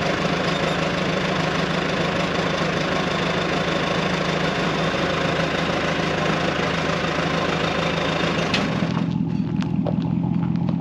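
Engine running steadily with a low hum and a broad hiss over it; the hiss drops away about nine seconds in while the engine keeps running.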